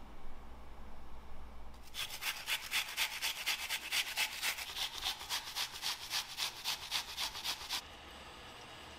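Food rasped on a handheld stainless-steel grater, in quick even back-and-forth strokes, about three a second. It starts about two seconds in and stops about a second before the end.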